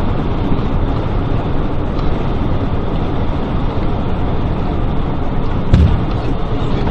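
A vehicle driving on a highway: steady road and running noise, with one short thump about six seconds in.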